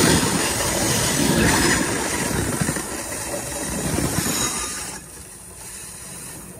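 Freight train wagons rolling past very close, steel wheels running on the rail with a loud rumble and clatter. The sound drops sharply about five seconds in.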